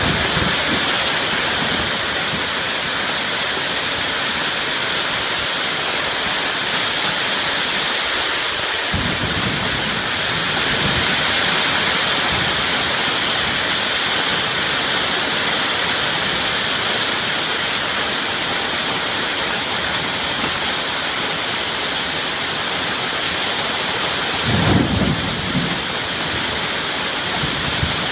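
Heavy rain falling steadily in a storm, a dense hiss. Low rumbles break through about nine seconds in and, louder, near the end.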